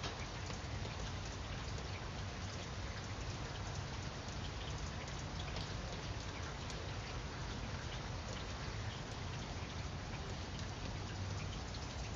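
Steady rain falling, with single drops ticking sharply here and there.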